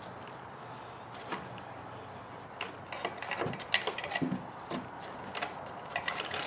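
Plastic side-mirror parts and a wiring-harness connector being worked by hand: a run of small clicks and rattles that starts a few seconds in, after a faint steady hiss.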